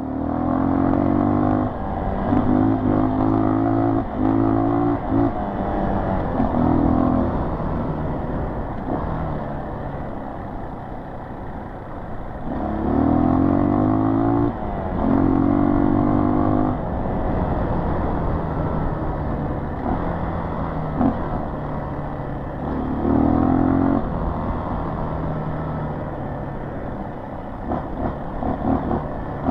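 Dirt bike engine running under way on a trail. The throttle is opened in several pulls, the pitch climbing as the bike accelerates, with quieter stretches of easing off between them.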